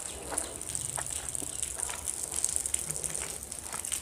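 Close-up chewing and wet mouth sounds of eating rice and curry by hand, with scattered soft clicks and smacks over a steady high hiss.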